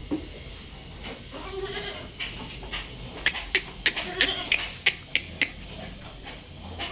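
Goats giving a few short bleats, with a run of sharp clicks and knocks at about three a second from about three seconds in as they feed at plastic buckets.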